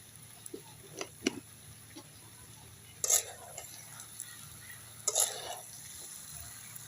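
Spoon stirring in a cooking pan: a few light knocks, then two louder scrapes about two seconds apart.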